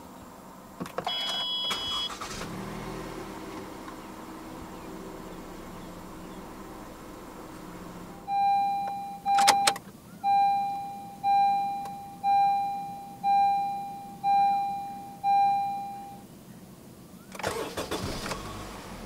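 A 2018 Toyota Camry 2.0's engine cranks and starts with a beep about a second in, then idles steadily. Then a 2015 Honda Accord 2.0's dashboard warning chime dings about seven times, roughly once a second, with a click among the first dings, and its engine cranks into life near the end.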